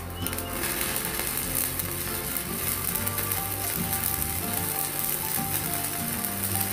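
Stick (MMA) arc welding with a 4.0 mm electrode on a mini IGBT inverter welder set to about 180 A: a steady sizzling, crackling arc that fills in about half a second in.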